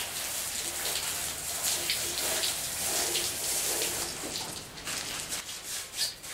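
Water running and splashing from a garden hose. After about four and a half seconds it gives way to the scratchy strokes of a nylon bristle brush scrubbing the engine block.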